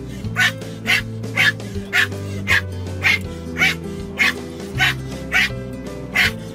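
Pomeranian puppy yapping in a steady rhythm, about two sharp barks a second, at the sweeping windshield wipers, over background music.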